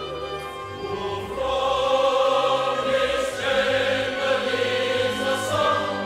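Mixed choir singing with a full symphony orchestra in a sacred choral piece, sustained chords that swell louder about a second and a half in and ease slightly near the end.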